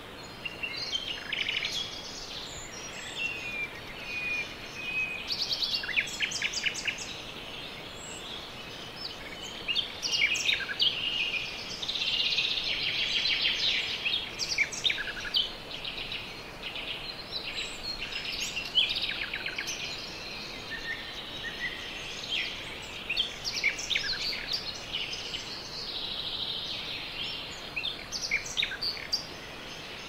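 Several birds chirping and trilling, with quick repeated notes and a few short whistles, over a steady hiss of forest ambience.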